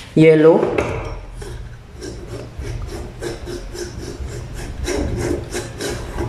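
Large yellow coloured lamp being twisted by hand into a porcelain screw lampholder: a quick run of short scraping rubs, about three a second, as it is turned in stroke by stroke.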